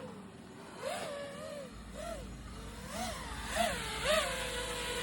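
Custom FPV quadcopter's brushless motors whining, with the pitch jumping up and back down about six times in quick throttle blips.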